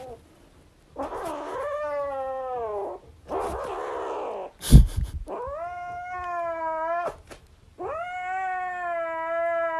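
A cat giving a series of long, drawn-out yowling meows, four in all, the second one rougher and hissier. A sharp, loud thump comes about halfway through.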